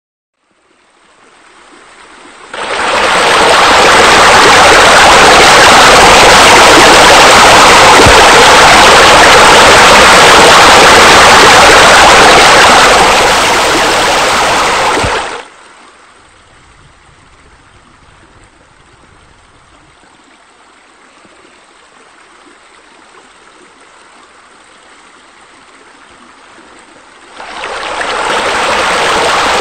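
Steady rushing, splashing water from a pool's water features: a spa spillover and wall spouts. It is loud from a couple of seconds in until about halfway, drops suddenly to a faint hiss, and swells back up near the end.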